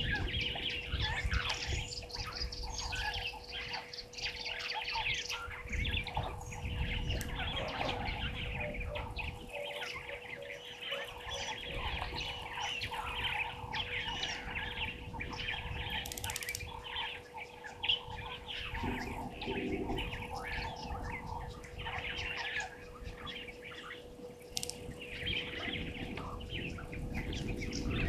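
A chorus of many birds chirping and calling over one another, with a steady faint hum underneath.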